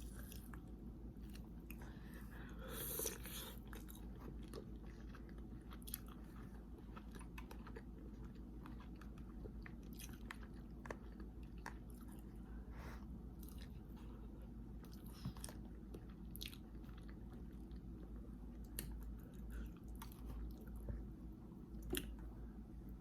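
A person chewing and biting food close to the microphone while eating a seafood boil, quiet and unhurried, with small sharp clicks every few seconds and a slightly louder stretch about three seconds in.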